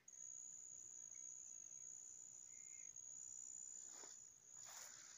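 Insect's steady high-pitched trill, one unbroken tone over an otherwise near-silent natural background. A faint short chirp comes about two and a half seconds in, and two brief soft noises come near the end.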